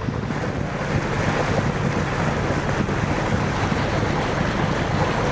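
Wind buffeting the microphone and water rushing along the hull of a sailboat under way, a steady rush with a low rumble beneath.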